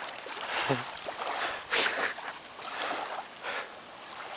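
Small waves washing onto a sandy beach. The water rushes loudest about two seconds in and again near three and a half seconds.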